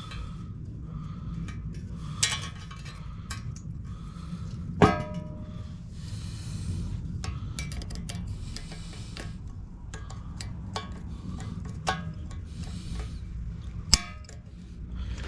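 Steel circlip being pressed and worked by hand into its groove in a rear wheel bearing housing: scattered light metallic clicks and scrapes, with one sharper ringing clink about five seconds in and another sharp click near the end.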